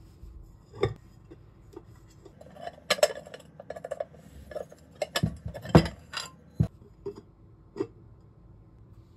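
Black ceramic clay pot (donabe) being handled, its ceramic lid and inner bowl clinking and knocking against the pot and the counter. It makes a string of separate sharp knocks, the loudest about halfway through.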